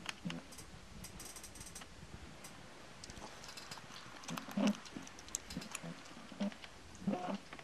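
Soft-coated Wheaten Terrier chewing and smacking on soba noodles: irregular wet clicks throughout, with a few louder soft knocks near the middle and near the end.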